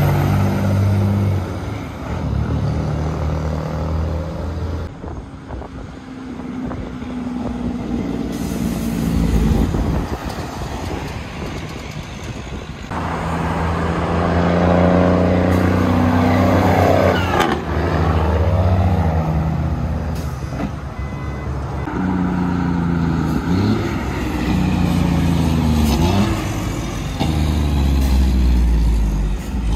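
Diesel semi trucks hauling shipping containers drive past one after another on a highway, mixed with passing cars. The rumble of each truck swells as it passes close and fades away, and the engine pitch shifts up and down as it goes.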